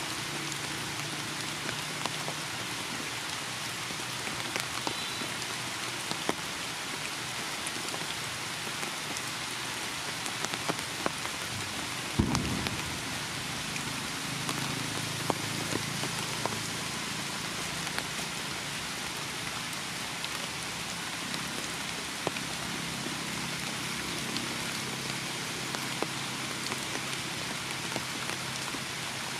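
Heavy rain falling steadily on leaves and branches, a dense hiss with many single drops ticking close by. One louder thump about twelve seconds in.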